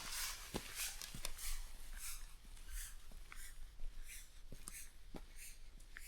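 Footsteps crunching steadily on rough ground, about two steps a second, over a low rumble.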